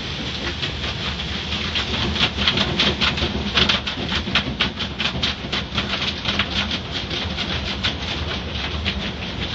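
Automatic car wash heard from inside the car: water spraying over the glass while soft-cloth wash strips slap rapidly and irregularly against the windshield. The slapping is densest in the middle and thins out near the end.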